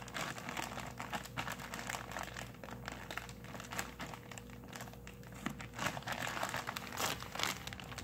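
Plastic freezer bag crinkling and rustling as it is handled, a steady run of small irregular crackles.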